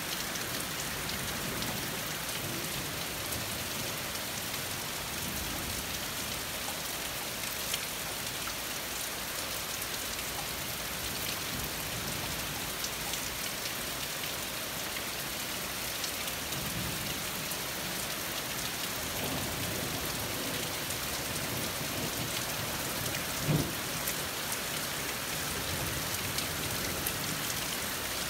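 Steady heavy rain falling through trees, a constant hiss with close drops ticking, and one sharper drop tap about three-quarters of the way through. Low rumbles come and go underneath, distant thunder of the storm.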